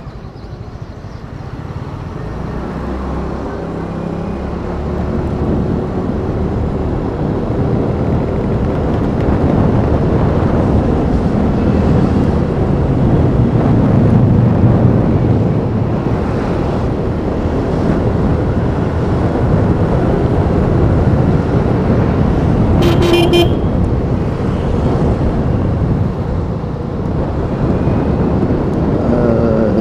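Wind rushing over the microphone with engine and road noise of a Yamaha Fino 125 scooter on the move, growing louder over the first ten seconds and then holding. A short vehicle horn toot sounds about three quarters of the way through.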